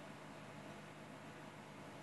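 Faint steady hiss with a low hum: a recording's background noise floor, with no other sound.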